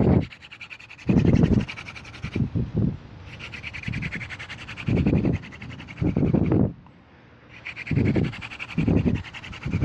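Horseweed hand-drill spindle spun between the palms in an eastern red cedar hearth board with light pressure, warming the board: a series of irregular rubbing strokes about half a second long.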